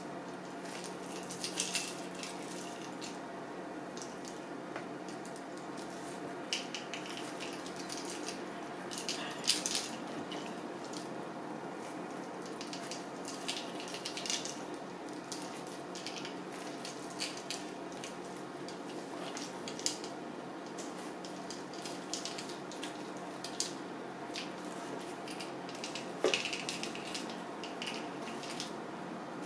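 Kitchen knife slicing into a peeled pineapple's juicy flesh to cut out the eyes: scattered short wet cuts and squelches with the odd click of the blade, over a steady low hum.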